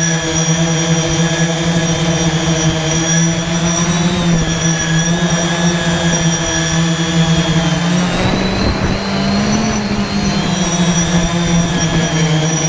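Detach Y6 multirotor drone's six brushless motors and propellers running in a hover: a steady whine over a low hum. About eight seconds in a rush of noise passes and the pitch rises briefly, then settles.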